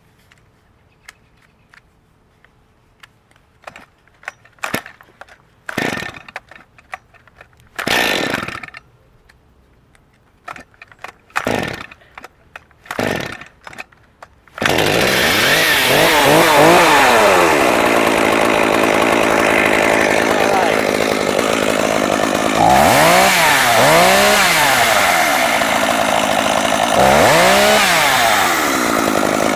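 Stihl MS201T top-handle two-stroke chainsaw being pull-started: a few short pulls on the starter cord, then about halfway through the engine catches and runs. It is revved up and back down several times.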